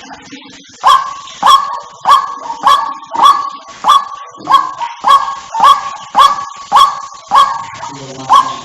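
White-breasted waterhen calling: a steady run of short, clipped notes, a little under two a second, each dropping slightly in pitch, starting about a second in. It is a recorded territorial call of the kind used as a hunting lure.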